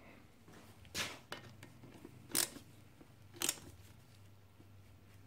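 Ratchet and socket tightening a bolt on a motorcycle's rear brake caliper: three short sharp clicks roughly a second apart.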